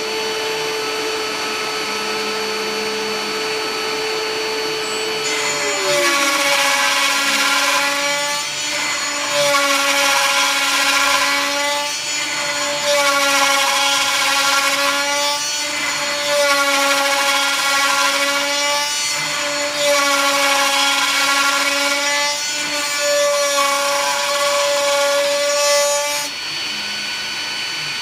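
TTA 3020 desktop CNC router's spindle milling a wooden flooring board. The steady spindle whine drops in pitch about five seconds in, then the cutting noise swells and eases in repeated passes about every three and a half seconds, stopping near the end.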